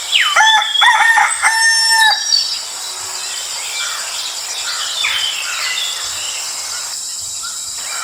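A rooster crows once, for about two seconds. Fainter bird chirps follow over a steady high-pitched insect-like drone.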